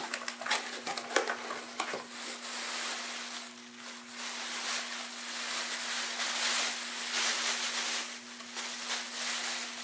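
Cardboard box flaps handled and pulled open, with a few sharp knocks and clicks in the first two seconds. Then a soft plastic bag rustles and crinkles in waves as it is lifted out of the box.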